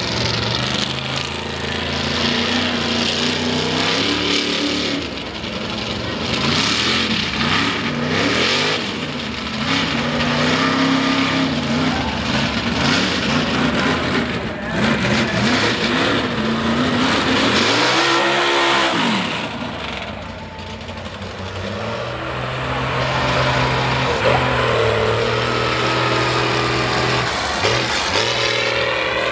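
Mega mud truck engines revving hard, pitch climbing and dropping over and over as the trucks throttle through the course, with one big rise-and-fall sweep about two-thirds of the way through.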